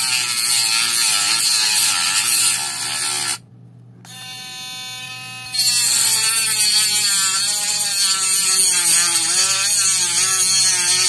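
Cordless Gogonova mini grinder running at its top (third) speed, its small cutoff disc cutting into a hard plastic antenna casing: a high whine whose pitch wavers as the disc is pressed into the plastic. About three and a half seconds in the sound drops away, the tool then runs freely and more quietly for a moment, and from about five and a half seconds in it is cutting again.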